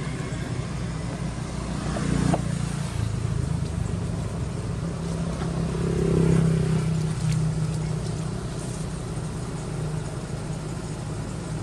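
Steady low rumble of a running motor vehicle engine, growing loudest about six seconds in and then easing off.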